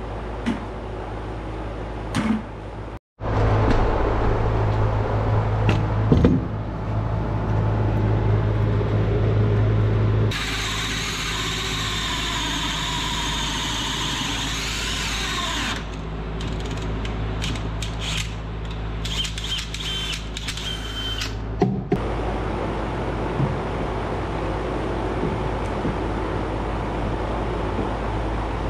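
Hand-held power drill running in spurts, its pitch rising and falling, with a few knocks from the work and a steady low hum throughout.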